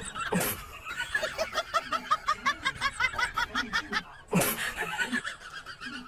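A person laughing in a long run of quick, high giggles, with a sudden louder burst about half a second in and again just past four seconds.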